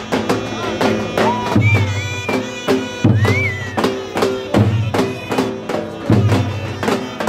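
Live Turkish folk music from davul drums and a reed pipe: the drums beat a steady rhythm with a deep boom about every second and a half, while the pipe plays held notes that bend in pitch.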